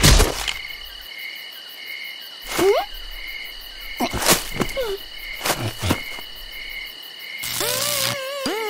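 Night-time cricket chirping, a high steady trill with a chirp pulsing about twice a second, used as cartoon background ambience. A few short swooping sound effects cut in around the middle, and a musical tune with wavering notes starts near the end.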